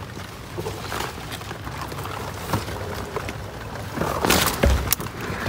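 Steady rain with scattered rustles in wet ground and vegetation, and a louder, splashy rustle about four seconds in.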